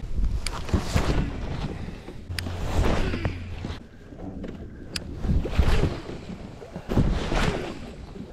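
Lake water lapping and slapping against a fishing kayak's hull, with wind buffeting the microphone in uneven gusts. A few sharp clicks come through now and then.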